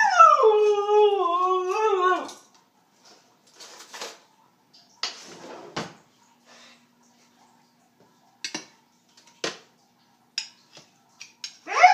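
Siberian husky 'talking': a long, drawn-out howl that starts high and slides down in pitch over about two seconds, vocalizing over her dinner being prepared. Scattered short clicks and brief rustles follow, and another howl begins near the end.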